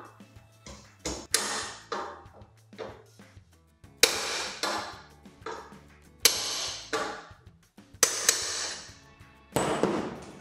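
Claw hammer striking a steel bed-leg channel bracket clamped in a bench vise: a series of sharp metal blows a second or two apart, each with a brief ringing. The blows are trying to knock free a stuck pin and push nut.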